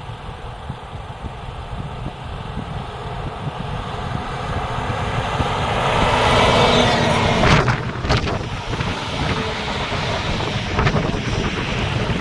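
Heavy-haul truck with an oversized load approaching and passing close by: low engine rumble and tyre noise build to a peak about six to eight seconds in, with two short sharp sounds at the loudest point, then a steady rush as the trailer and following escort vehicles go by.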